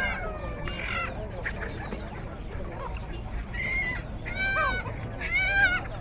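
Caged poultry calling: a series of loud honking calls, three of them close together in the second half and the loudest near the end, over a steady background of birds and bustle.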